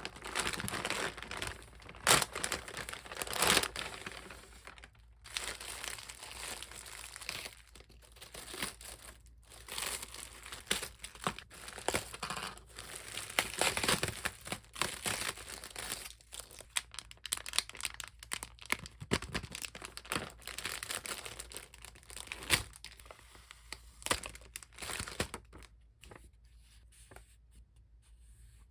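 Parcel packaging being unwrapped by hand: irregular crinkling and tearing with sharp crackles, dying down near the end.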